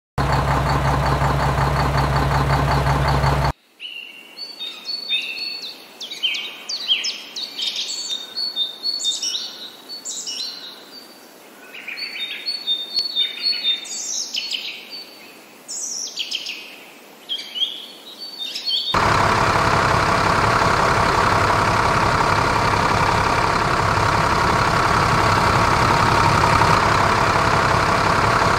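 A steady low hum for about three seconds, then birds chirping and trilling in quick repeated calls. About two-thirds of the way in, a loud steady engine-like running sound cuts in and carries on.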